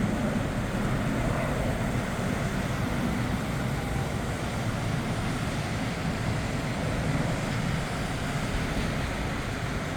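Steady, even rumble of the Eclipse 500's twin Pratt & Whitney PW610F turbofan engines at takeoff power as the light jet takes off.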